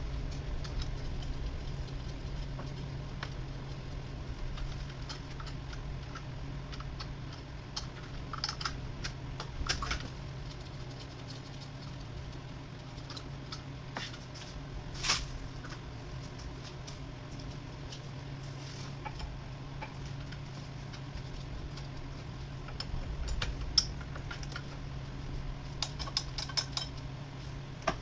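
Scattered small clicks, taps and light metallic clinks of tools and parts being handled, over a steady low hum.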